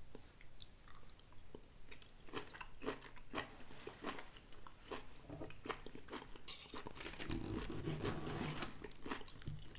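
Close-up chewing of a mouthful of green beans, with many short wet clicks and crunches. Toward the end a metal fork scrapes and clicks in the plastic TV-dinner tray.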